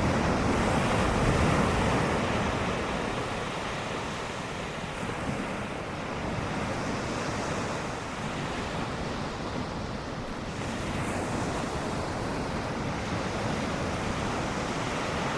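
Ocean surf washing steadily, with wind buffeting the microphone; a little louder in the first couple of seconds.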